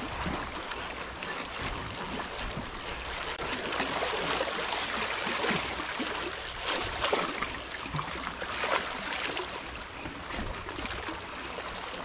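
Sea water washing and splashing steadily, with wind rumbling on the microphone.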